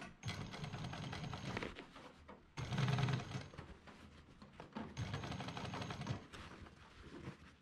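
Industrial sewing machine stitching a zipper onto canvas in three short runs of about a second each, with pauses between while the fabric is repositioned; the middle run is the loudest.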